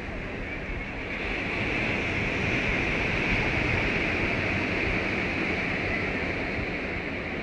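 Ocean surf breaking and washing up a sandy beach: a steady rushing that swells about a second in and eases a little near the end.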